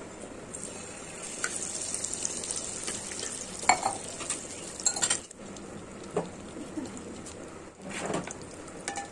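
Ghee and oil sizzling in a hot nonstick kadai, with a steady hiss throughout. A wooden spatula scrapes and knocks against the pan several times.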